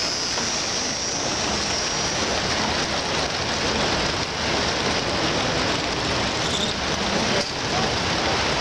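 American Flyer S-gauge model freight train running past on the layout's track: a steady, even rushing clatter of wheels on rail.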